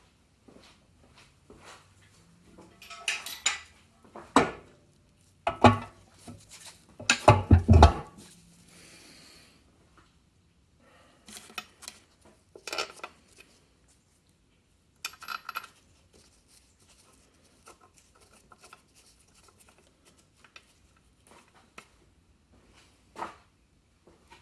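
Metal clanks, scrapes and rattles as the top cover is set back onto a Pratt and Whitney lathe's gear head, in irregular bursts: the loudest about three seconds in and again around six to eight seconds, then scattered lighter knocks.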